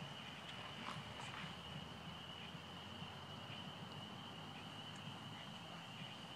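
Faint outdoor ambience: a steady, high-pitched insect drone, with a few faint chirps over it.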